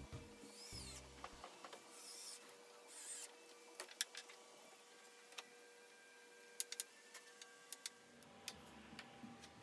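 Faint screwdriving of screws into a steel plate set in hardwood: short squeaky whirs in the first few seconds, then scattered light clicks.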